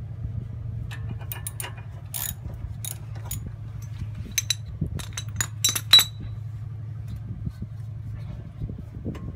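Light metallic clinks and rattles of steel tools being handled as a tie rod end puller is taken off a car's steering knuckle and set aside. The clinks come in a loose string over several seconds, the sharpest about six seconds in, over a steady low hum.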